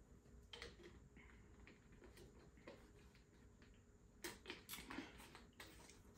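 Faint eating sounds close to the microphone: a few soft clicks and smacks, with a quick run of them about four to five and a half seconds in.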